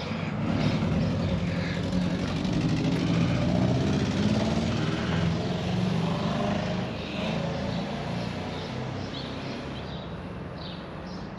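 A motor vehicle's engine running with a low, steady hum, growing louder for the first few seconds and then fading away, as if driving past.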